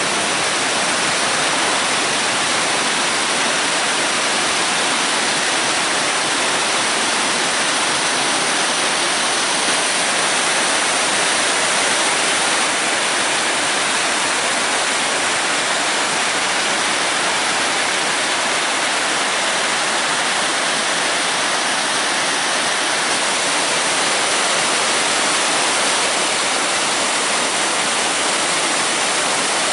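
River rapids: white water rushing steadily over a shallow, rocky riverbed.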